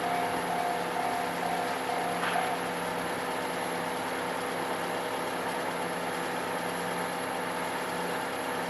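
Japanese railway level-crossing warning bell ringing in quick, even strokes, then stopping about two and a half seconds in as the crossing clears after the train. A steady low mechanical hum runs underneath.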